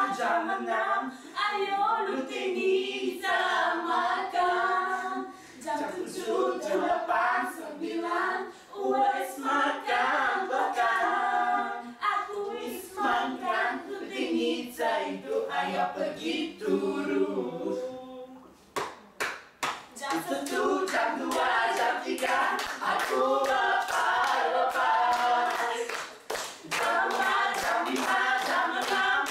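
A small group of young men and women singing a cappella, clapping their hands along. About two-thirds of the way through the singing breaks off for a moment, leaving a few claps, then starts again.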